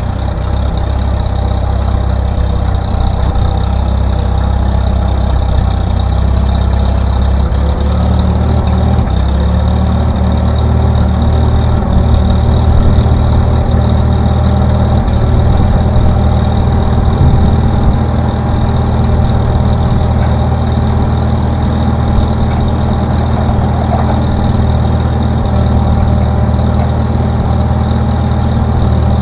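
An engine running steadily at a low, even speed.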